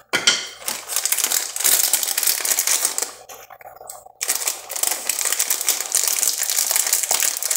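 A plastic wrapper crinkling and crackling as it is handled. It goes in two long stretches with a short pause a little over three seconds in.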